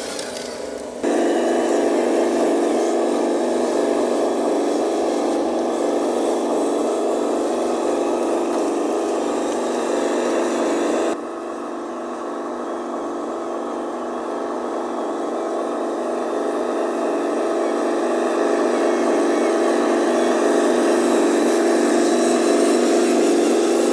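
Radio-controlled truck's motor and gearbox whirring steadily. The sound jumps louder about a second in, drops back abruptly about eleven seconds in, then slowly builds again.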